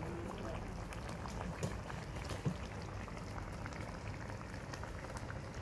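A pot of spicy braised hairtail and potatoes bubbling at a simmer on a portable gas burner, with a steady patter of small pops and a couple of louder ones.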